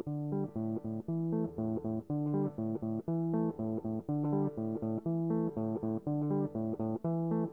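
Background music: a plucked guitar line over bass, notes picked in a steady, even rhythm.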